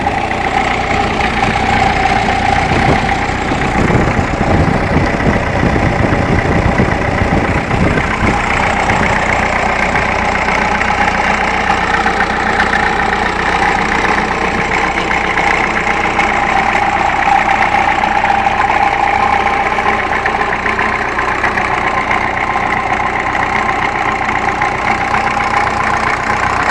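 Ferguson TEF 20C tractor's four-cylinder diesel engine idling with a diesel knock, running evenly after a rebuild of the engine and injection pump. It is a little rougher over the first several seconds before settling.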